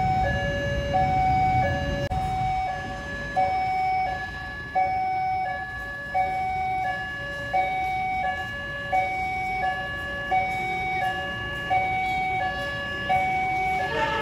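Railway level-crossing warning alarm sounding its two-tone electronic chime, a higher and a lower tone alternating steadily with each lasting under a second. Road traffic rumbles underneath, mostly in the first two seconds.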